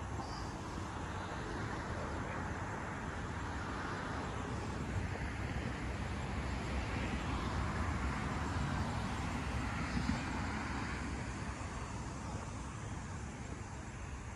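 Road traffic: an even hum of passing vehicles that swells gently towards the middle and eases off near the end.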